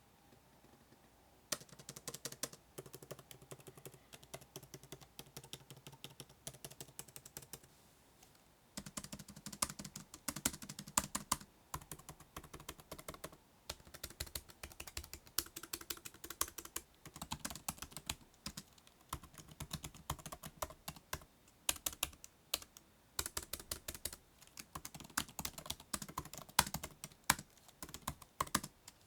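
Typing on the built-in scissor-switch keyboard of a 2024 14-inch MacBook Pro: runs of quick, light key clicks that start about a second and a half in, with a couple of brief pauses between bursts.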